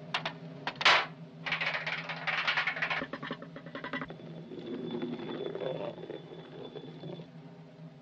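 Cartoon orchestral score holding a low sustained chord, overlaid with quick clicks and a stretch of busy, brushy swishing sound effects between about one and a half and three seconds in.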